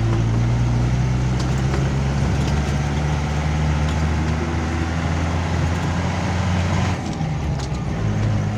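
Vehicle engine running steadily while driving, with a constant road noise over it. The engine note drops and changes about seven seconds in.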